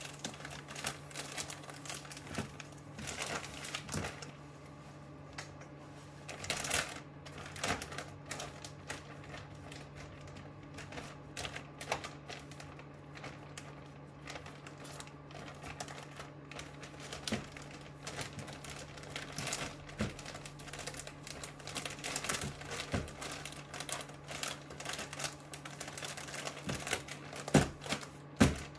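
Plastic mushroom grow bag filled with white millet grain being folded and rolled tightly by hand: the plastic crinkling and the grain shifting inside in many small rapid clicks, over a steady low hum. A couple of louder knocks come near the end.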